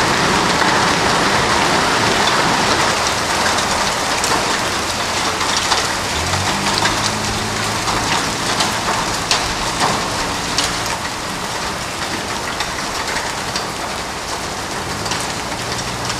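Heavy hail and rain pelting pavement and the ground in a dense, steady hiss. Sharp clicks of individual hailstones striking hard surfaces stand out through the middle of the stretch.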